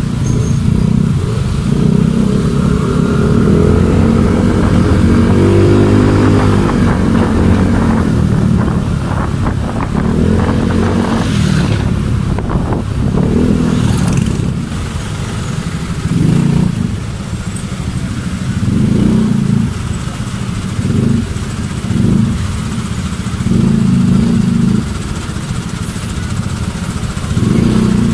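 Motorcycle engine, heard from on the moving bike, speeding up and easing off again and again in stop-and-go city traffic, with a steady hiss of road noise and other traffic around it.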